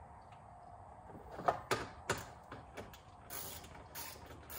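Socket ratchet working 10 mm screws out in the engine bay, with scattered clicks and knocks against plastic and short bursts of ratcheting and scraping near the end.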